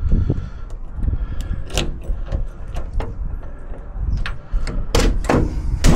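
Clicks and clunks of a Jeep Wrangler YJ door latch and lock being worked by hand as the key is tried, with the sharpest knock near the end.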